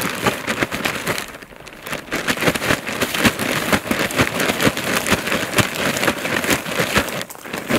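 Salt being sprinkled and worked over freshly caught roach, with a dense, irregular pattering and crackling of grains. It dips briefly about a second in.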